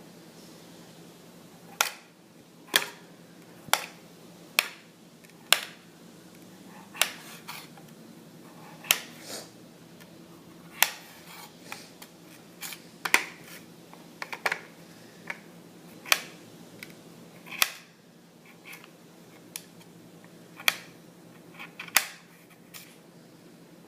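A knife chopping through a potato onto a cutting board: short, sharp knocks at uneven intervals, roughly one a second, over a faint steady hum.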